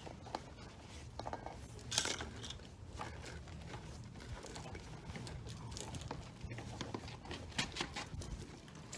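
Scattered light clicks and knocks of objects being handled, with a louder clatter about two seconds in, over a low steady hum.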